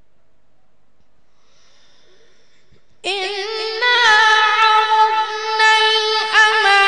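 A boy's voice reciting the Quran in melodic tilawat style, amplified through a microphone. After a pause with a faint intake of breath, it begins suddenly about three seconds in with a high, long-held line full of wavering ornaments.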